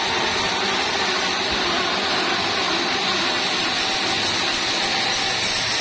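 Sawmill machinery running steadily with a constant whirring noise, typical of a saw cutting wood.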